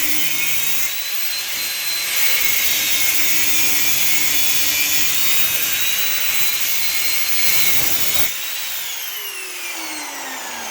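Angle grinder cutting into a heavy brass fitting, running steadily with a high whine. About eight seconds in the cut stops and the tool spins down, its whine falling in pitch.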